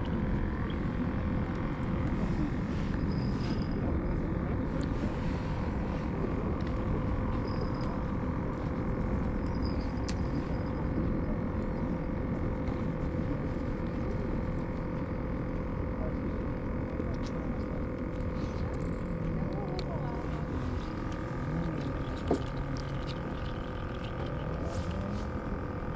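Steady outdoor background drone with a constant low hum, and one sharp click about twenty-two seconds in.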